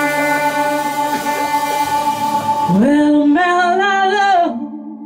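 Live blues band: electric guitar holding ringing notes, then about three seconds in a woman's voice slides up into a long sung note with vibrato, which breaks off shortly before the end, leaving a softer held guitar note.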